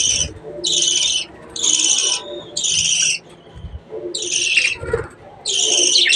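Budgerigars calling: short, high, hissy calls repeated about once a second, with a couple of soft low thumps partway through.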